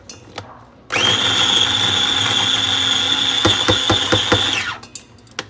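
A small electric kitchen appliance motor runs for about four seconds, spinning up with a quick rising whine about a second in and stopping near the end, with a few knocks in its last second.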